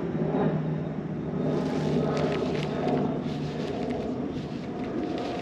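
A steady low rumble with a faint hum running through it. From about a second and a half in come light, scattered ticks and taps.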